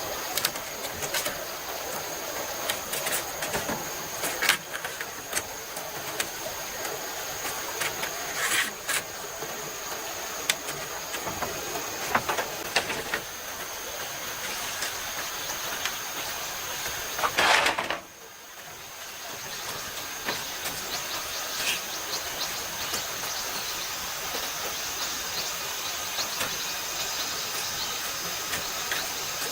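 Steady rush of flowing stream water, with scattered knocks and taps over it and a steady high thin tone above.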